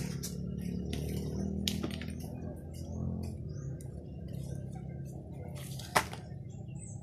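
Light scattered clicks and taps of small objects being handled, with one sharp knock about six seconds in, over a low steady hum that fades after about three seconds.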